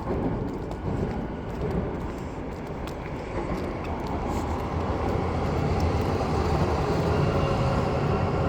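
Vehicle traffic running, a steady rumble that grows gradually louder.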